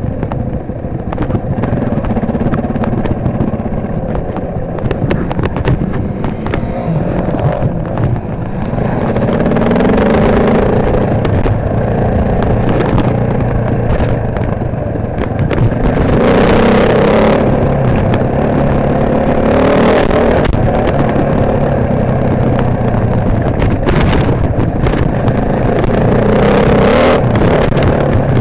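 KTM 525 EXC single-cylinder four-stroke dirt bike engine heard from the rider's helmet, revving up and down as it rides along a trail, with several louder surges of throttle.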